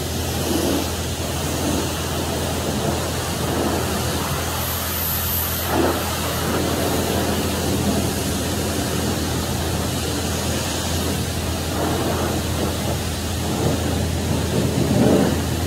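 Self-serve car wash pressure wand spraying water onto a pickup truck: a steady hiss of high-pressure spray over a constant low hum.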